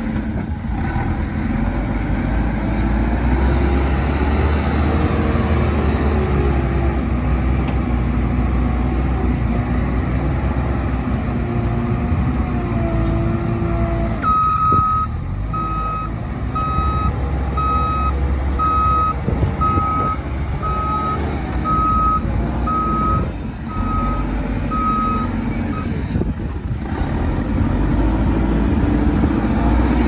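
JCB 3CX backhoe loader's diesel engine running, rising and falling in pitch as the machine drives and works its loader bucket. A little under halfway through, its reversing alarm starts beeping steadily, about once a second, for some eleven seconds, then stops.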